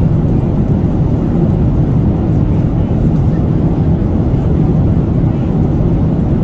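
Steady low rumble of a Boeing 737's cabin, the airliner's machinery and air system running, with no distinct events.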